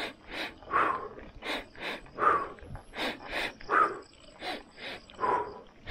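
Heavy, rhythmic breathing of a cyclist climbing a hill: quick huffing breaths, with a voiced, falling exhale about every second and a half.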